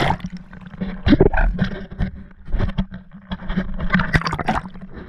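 Seawater splashing and sloshing against a waterproof action camera as it dips below the surface, with muffled bubbling in uneven bursts.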